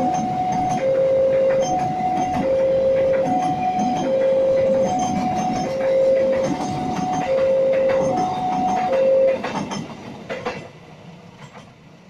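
Electronic level-crossing warning alarm, sounding two alternating tones about a second and a half per pair, over a passing train whose wheels click over the rail joints. The alarm stops about nine seconds in and the train noise fades away.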